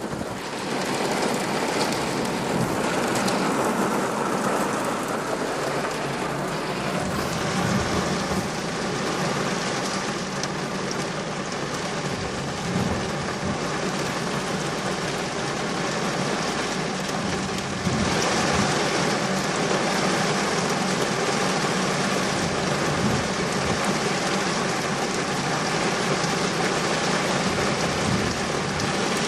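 Heavy rain pouring down steadily, a dense hiss of rain on surfaces. It gets louder about two-thirds of the way through.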